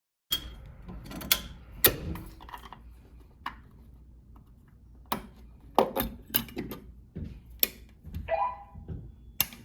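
About a dozen sharp, irregular clicks and knocks of hardware being handled, spaced unevenly and several close together around six seconds in. No alarm horn or bell is sounding.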